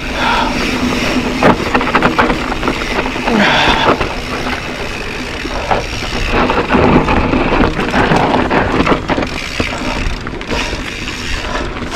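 Mountain bike riding down dry dirt singletrack, heard from a camera on the rider: wind buffeting the microphone, tyres rolling and crunching over dirt and stones, and the bike rattling and knocking over bumps.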